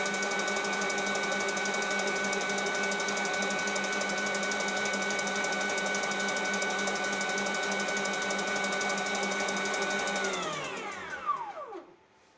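Electric mixer running steadily at high speed while beating egg whites, then switched off about ten seconds in, its motor whine falling in pitch as it spins down. There is a single knock just before it stops.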